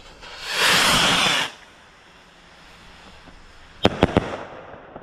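Comet Goldrush firework rocket launching with a loud whoosh lasting about a second. About two and a half seconds later it bursts: one sharp bang followed by a few quick cracks.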